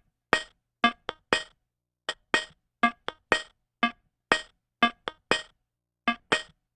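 Music: a sparse song intro of short, sharply struck clinking notes in a steady repeating pattern, about two to three a second, with silence between them.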